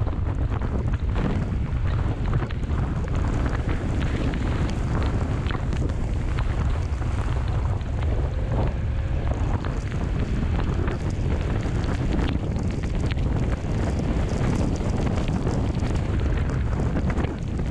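Wind buffeting the microphone of a camera on a moving motorcycle: a steady low rumble with small crackles, over the sound of the bike riding along a wet road.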